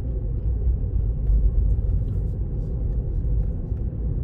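Steady low rumble of road and tyre noise inside the cabin of a Tesla Model 3, an electric car with no engine note, rolling at low speed.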